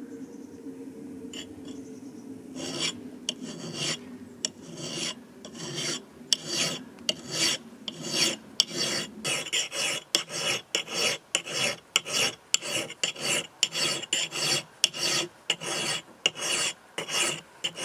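A hand file scraping across the steel cheek of a double-bit axe in even rasping strokes, about two a second, starting a few seconds in. It is taking metal off behind the edge to thin the bevel into a convex grind.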